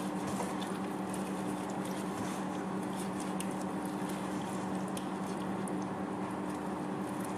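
Gloved hands squishing and turning chicken pieces in a thick mayonnaise marinade in a stainless steel bowl: a soft, wet patter of small squelches. A steady low hum runs underneath.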